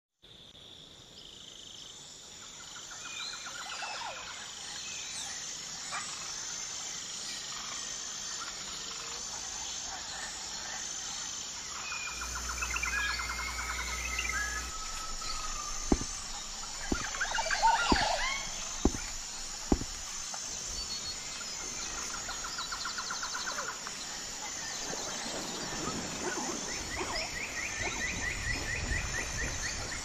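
Birds calling and trilling over a steady high-pitched insect buzz. Midway through come five sharp knocks, about a second apart.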